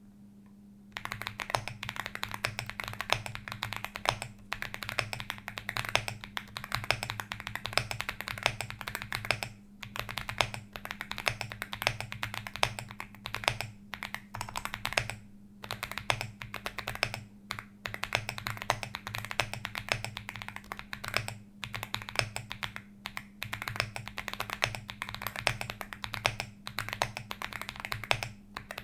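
Fast typing on a Zoom65 mechanical keyboard with Shenpo 6002 keycaps and lubed Akko Lavender Purple tactile switches: quick runs of keystrokes broken by short pauses, starting about a second in. A steady low hum sits underneath.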